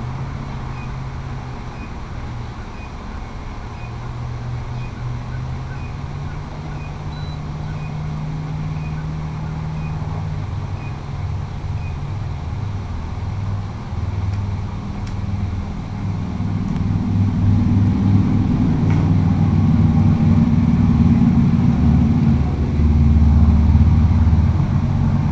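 Wind buffeting the microphone: a low, gusty rumble that grows louder through the second half.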